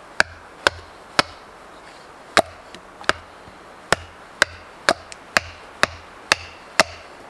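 Wood being chopped with an axe: about a dozen sharp strikes, roughly two a second with a pause of about a second near the middle.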